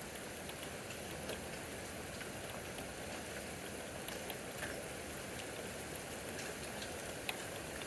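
Steady thunderstorm rain, with scattered single drops clicking sharply on a nearby surface.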